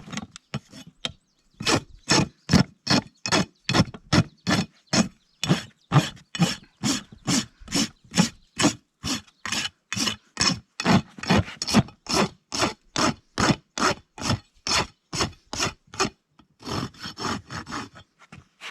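Farrier's rasp filing a horse's hoof in steady back-and-forth strokes, about two to three a second, with a short pause about sixteen seconds in before quicker strokes resume.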